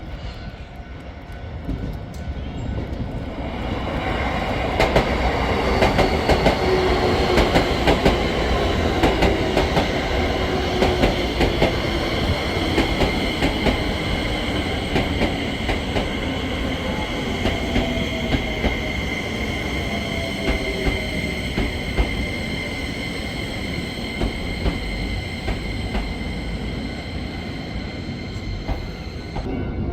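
A Keio Line electric train comes in from about four seconds in and runs by. Its wheels click steadily over the rail joints, over steady high tones and lower tones that slowly fall in pitch.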